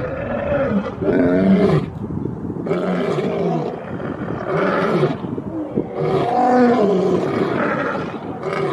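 A lion roaring: a bout of about six roars in a row, each about a second long, with short pauses between them.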